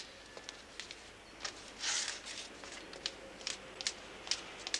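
Footsteps of hard-soled shoes clicking on a hard floor at an unhurried walking pace, with a brief soft hiss about two seconds in.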